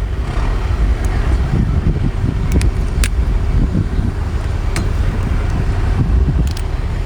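Steady low rumble with a few sharp clicks scattered through it, about one, two and a half, three, five and six and a half seconds in.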